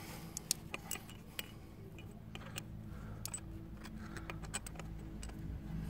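Scattered light metallic clicks and clinks of a bolt and tools as the lower mounting bolt of a car's air-conditioning compressor is tried into place, over a faint steady low hum.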